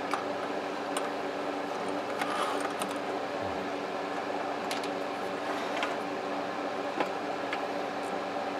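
Scattered light clicks and taps of a cordless phone base's plastic housing and circuit board being handled during disassembly, over a steady background hum.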